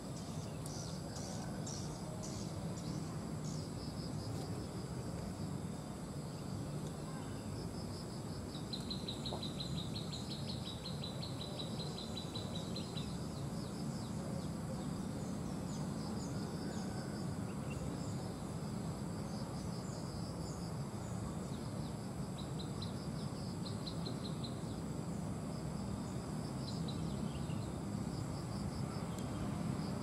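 Insects keep up a steady high-pitched drone, while a small bird gives thin high chirps and, about a third of the way through, a rapid trill lasting around four seconds. A low steady rumble runs underneath.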